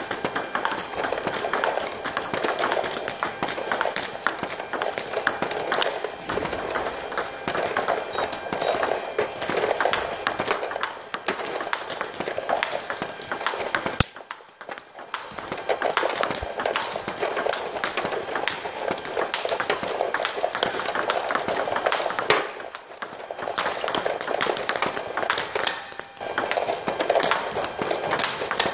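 Table tennis ball clicking rapidly and repeatedly off the rubber bats and the table in a topspin-against-topspin rally.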